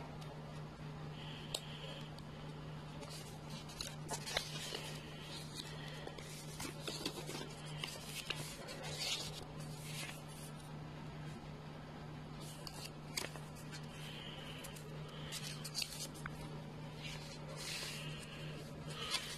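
Paper rustling as a thin paper user manual is handled and its pages are leafed through, in irregular bursts with a few light taps, mostly from about three to ten seconds in and again near the end. A steady low hum runs underneath.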